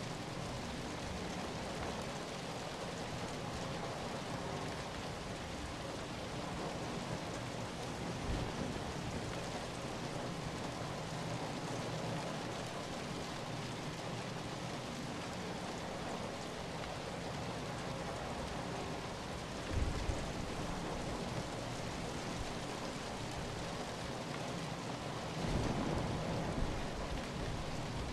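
Steady rain falling, an even hiss of drops on a surface. A few brief low thumps come about a third of the way in, around two-thirds of the way in, and near the end.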